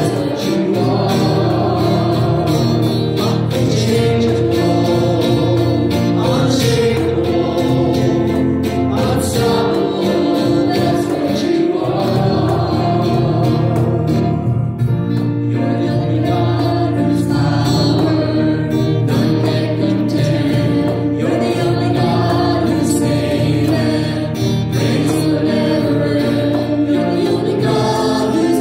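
Christian praise song performed by a small worship band: several voices singing together over acoustic guitar and cajon.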